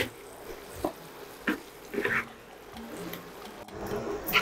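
Wooden spatula stirring chicken wings through a thick sauce in a nonstick frying pan: irregular scraping, squelching strokes, a few in the first two seconds and another near the end, over a faint steady hiss.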